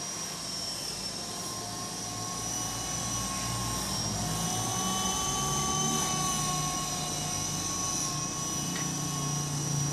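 Small RC helicopter (FX052) in flight: its motor and rotors make a steady whine whose pitch rises and falls slightly as it manoeuvres.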